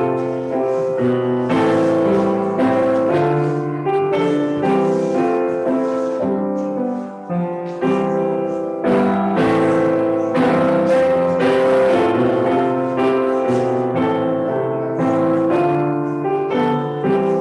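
Piano music: chords and melody notes played at an even pace, with a short break about seven seconds in.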